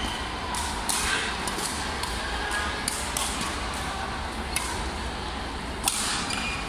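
Badminton rackets striking shuttlecocks: short, sharp hits every second or so from several courts, one louder hit near the end, ringing in a large echoing sports hall.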